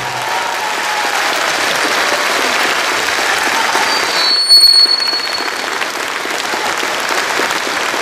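Audience applauding after a song ends, steady throughout, with a brief high-pitched whistle cutting through about halfway.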